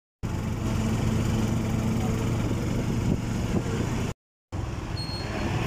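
Small vehicle engine running steadily with road and wind noise, heard from inside an open-sided vehicle while riding. The sound drops out completely for a moment about four seconds in, then carries on.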